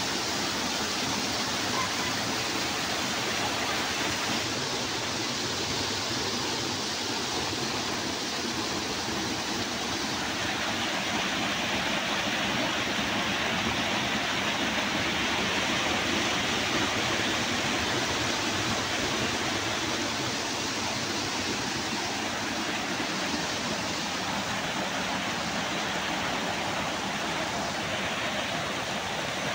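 A sheet of water falling from a ledge into a pool, splashing into the foaming surface below: a steady, even rush of falling water.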